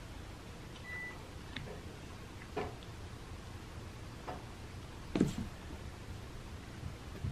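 A cat biting and tearing at fresh cat grass growing in a plastic tray: a few short, quiet crunches and snips, the loudest about five seconds in, over a low steady hum.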